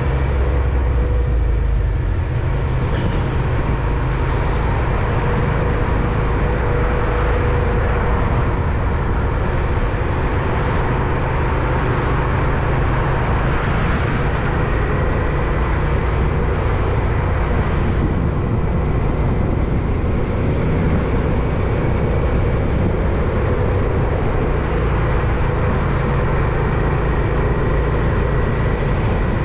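Steady rush of wind on the microphone and road noise while riding a bike, with a faint, even whine above it.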